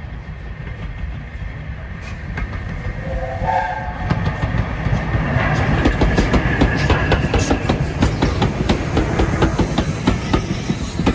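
Double-headed steam train, with LNER A4 Pacific 60007 leading, passing close: a heavy rumble of the locomotives and coaches, getting louder about four seconds in, with a rapid clatter of wheels over the rail joints as the engines and coaches go by.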